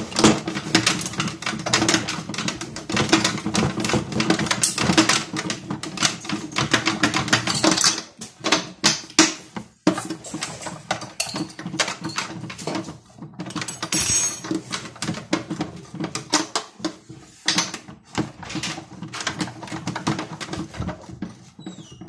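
Toy Miele washing machine on its rinse: the small motor hums with a rapid clatter as the drum turns the socks through the water. The sound dips about eight seconds in and almost stops just before ten seconds, then runs again.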